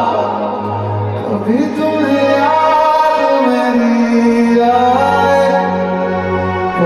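Man singing a slow melody live into a microphone, holding long notes that glide between pitches, over a steady low sustained backing.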